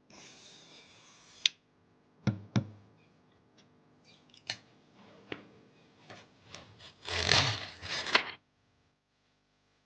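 Hands handling computer parts during assembly: a soft rubbing and sliding, a sharp click, two knocks, a few small clicks, then a louder rustling scrape near the end before everything goes quiet.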